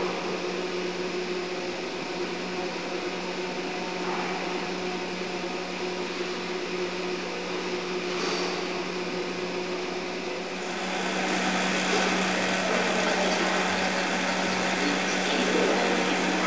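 Steady mechanical hum with a low droning tone, which grows louder and rougher about ten seconds in.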